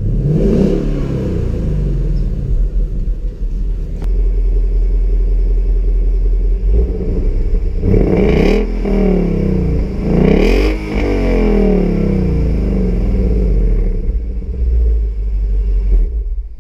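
2016 Ford Mustang GT's 5.0-litre V8 through its stock exhaust, at the tailpipe: idling steadily and revved quickly once near the start and twice more about halfway through, each rev rising and dropping straight back to idle.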